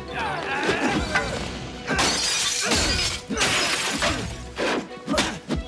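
Action-film fight soundtrack: music under a run of crashing, smashing impacts with shattering.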